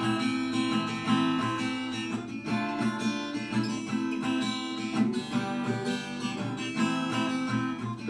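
Acoustic guitar strummed in a steady rhythm of chords, played alone with no singing, as an instrumental break between verses of a song.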